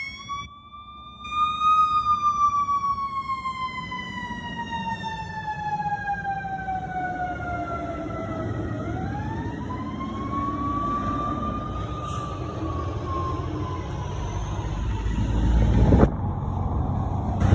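Fire truck siren sounding, winding up and then slowly winding down in pitch, twice, over a truck engine's low rumble. A sharp knock comes near the end.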